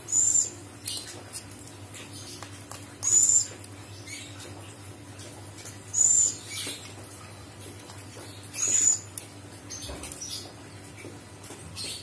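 Buffy fish owl giving four short, high-pitched squeaky calls, about three seconds apart.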